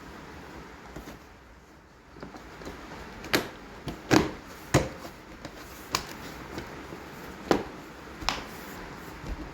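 A handful of sharp, separate clicks and knocks, about six over five seconds with the loudest about four seconds in, from hands working on a car door's wiring and plastic trim.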